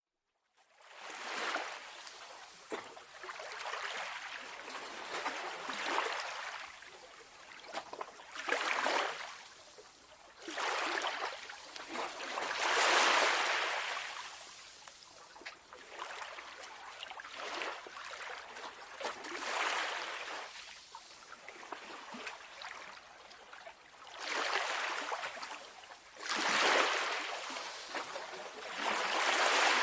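Calm sea waves: a hiss of water that swells and falls away every few seconds, fading in about a second in.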